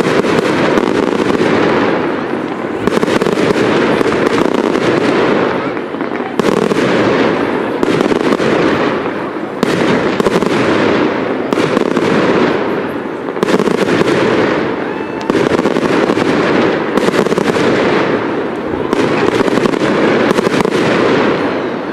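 Aerial fireworks display: a continuous run of shell bursts with crackling stars. A fresh volley of bangs breaks about every two seconds, each trailing off in crackle.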